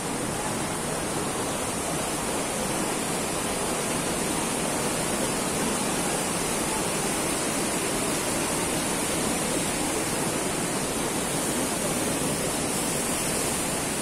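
Steady rush of water from a mountain waterfall, an even unbroken sound with no pauses.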